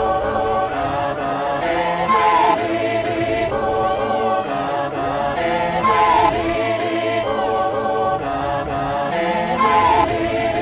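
Background music: a choir-like vocal passage of sustained sung chords with a few sliding notes, without a beat or rapping.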